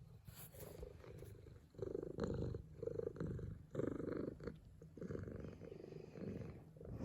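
Somali cat purring, the purr coming in swells of about half a second to a second with short breaks between breaths.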